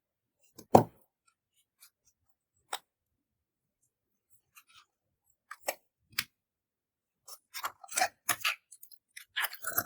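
Clear slime being worked by hand, giving short sharp clicks and snaps: one loud snap near the start, a few scattered clicks, then a quick run of them in the last few seconds.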